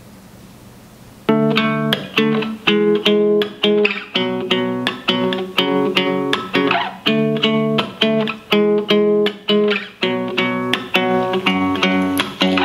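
Guitar music played through an F&D W12 portable Bluetooth speaker and picked up by a camera microphone. It starts about a second in with plucked or strummed chords in a steady rhythm, a few each second.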